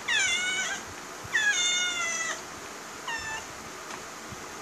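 A house cat meowing three times, each call sliding down in pitch; the middle one is the longest and the last is short.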